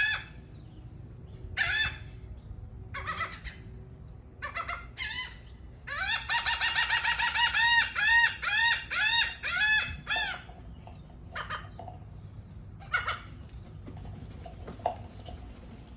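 Seagulls calling: several short, harsh pitched calls, then from about six seconds in a fast run of repeated calls, about four a second, for roughly four seconds, followed by a few scattered calls.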